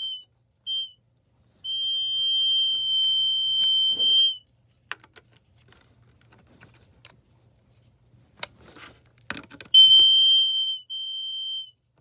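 Smoke alarm on a 9-volt battery sounding its continuous high-pitched test tone in stretches: a brief blip, then about three seconds of steady tone, a gap filled with clicks and handling, then the tone again for the last two seconds.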